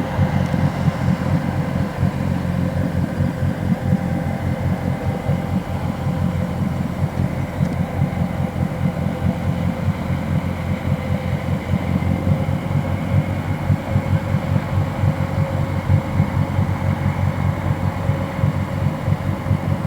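Boat diesel engine running steadily: a low, rapid throbbing drone with a fainter steady tone above it.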